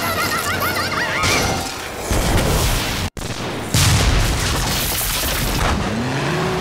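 Tank sound effects from an anime: a high wavering squeal of metal tracks as the tank skids, then after an abrupt cut a loud shell explosion about three and a half seconds in, its rumble carrying on.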